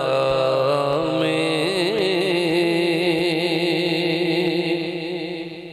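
Male voice singing a long drawn-out note of a devotional Urdu song, wavering at first and then held steady over a low drone. It fades away near the end.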